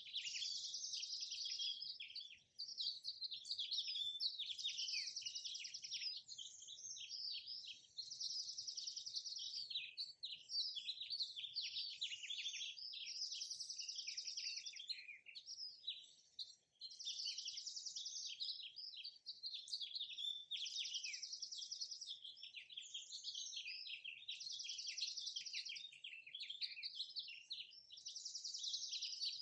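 Birds chirping and singing: a dense run of high chirps and trills, with a short trilled phrase repeating every few seconds.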